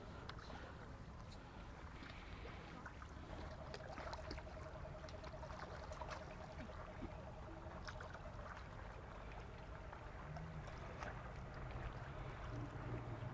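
Outdoor lake ambience: a low steady rumble of wind and water with scattered small clicks, and a faint buzzing tone in the middle stretch.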